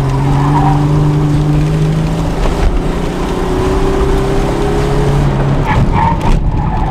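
Car engine under hard acceleration, heard from inside the cabin. Its note rises over the first two seconds, then holds lower and drops off about five and a half seconds in, with brief tire squeal through the cone turns.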